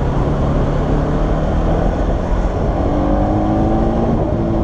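Bajaj Pulsar NS200's single-cylinder engine with an aftermarket exhaust running under steady road and wind noise while riding, its note rising slowly in the second half.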